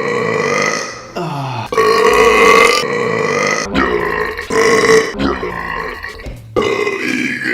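A man belching loudly: several long, drawn-out burps in quick succession, each lasting a second or two and breaking off abruptly.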